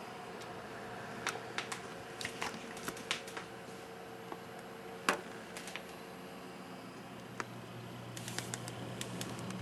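Desktop computer's cooling fans running steadily under full processor and hard-drive load, a quiet hum and airy hiss with a faint steady tone. Irregular sharp clicks sound over it, a cluster in the first three seconds, one louder click about five seconds in, and another cluster near the end.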